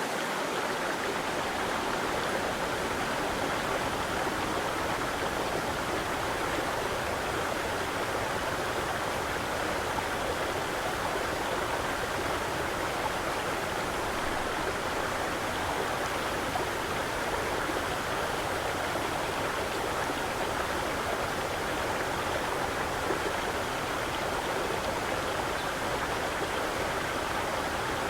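Running water rushing steadily: an even, unbroken wash of sound.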